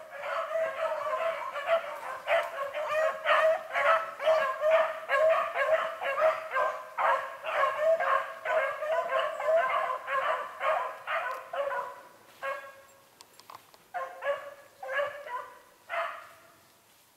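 A pack of beagles baying on a rabbit's trail, many overlapping bays several a second. The chorus thins out about two-thirds of the way through, with a few last separate bays before it stops shortly before the end.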